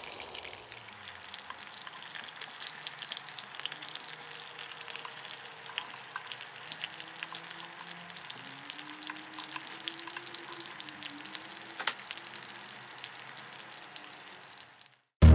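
Meatballs frying in hot oil in a pan: a steady sizzle full of small crackling pops, with one louder click about twelve seconds in.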